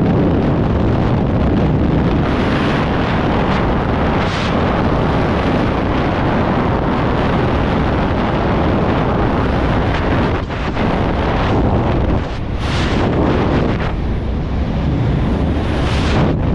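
Freefall wind rushing over a skydiver's camera microphone: loud, steady buffeting air noise that eases briefly twice, about ten and twelve seconds in.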